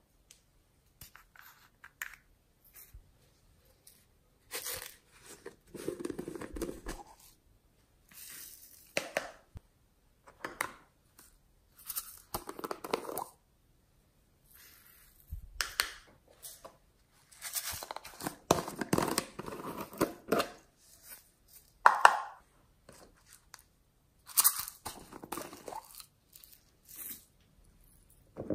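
Small plastic jars of glitter and sequins handled and shaken out over slime: irregular rustling, rattling bursts with sharp clicks between them.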